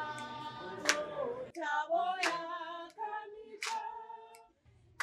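Unaccompanied singing voices holding long notes, with a sharp hand clap about every second and a half. The singing breaks off briefly just before the end.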